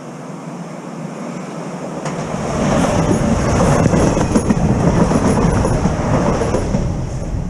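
UT 447 electric commuter train passing close by at speed. It grows louder about two seconds in, with a rapid clatter of wheels over the rail joints, and begins to fade near the end.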